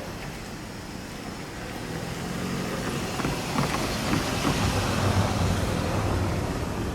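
A road vehicle drives past, its engine hum and tyre noise swelling to a peak about five seconds in and then easing off, with a few light clacks along the way.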